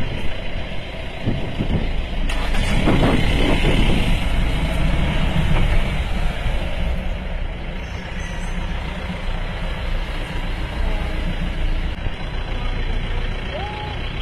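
Safari jeep engines running at idle, a steady low rumble, with louder rough noise about two to four seconds in.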